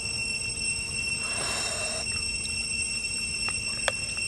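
Steady high-pitched trilling of night insects, with a brief rustle about a second and a half in as hands pull meat from a foil-wrapped cooked snake. A few sharp crackles come near the end.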